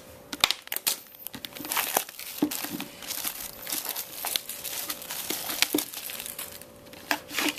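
Plastic shrink wrap on a sealed trading card box crinkling under handling fingers: an irregular run of small sharp crackles.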